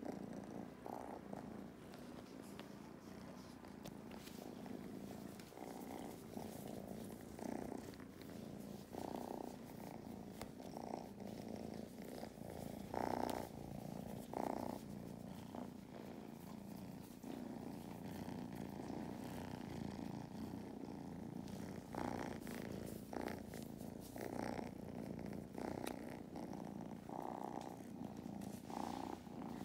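Kittens purring steadily and strongly, close to the microphone, with short brushing sounds now and then as a hand strokes their fur.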